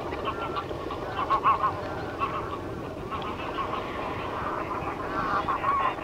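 Greylag geese honking: louder nasal calls about a second in, again near two seconds, and again near the end, over a steady background of many overlapping goose calls.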